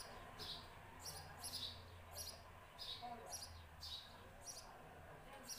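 A small bird chirping over and over: short, high, falling chirps about two a second, faint.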